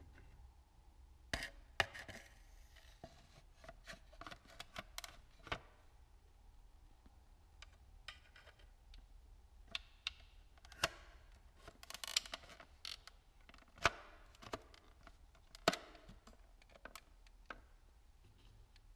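Irregular small clicks, taps and rustles of hands handling the plastic mirror housing and baseplate of a BMW R1100RT/R1150RT and its steel wire catch cable.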